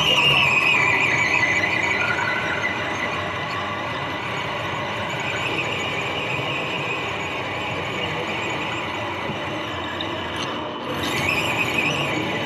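Electric drivetrain of a radio-controlled scale Mercedes off-roader whining as it drives, heard from inside its cab. The high whine wavers and falls in pitch over the first two seconds, fades a little, and comes back louder about eleven seconds in, over a steady mechanical rattle.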